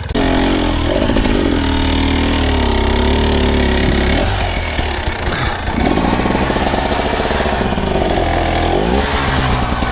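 Dirt bike engine running at low speed, revving up and dropping back several times as the bike is worked under a fallen tree.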